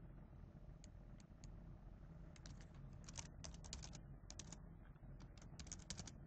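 Faint computer keyboard typing: a few separate key clicks at first, then quick runs of keystrokes from about two seconds in.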